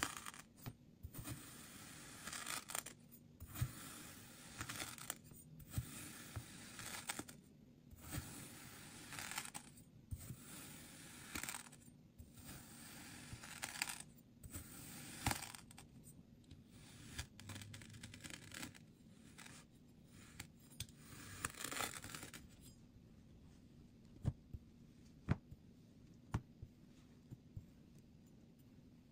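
Kinetic sand being cut and crushed: a run of crisp, grainy crunching strokes with short pauses between them. About three quarters of the way through they stop, leaving a few sharp light taps.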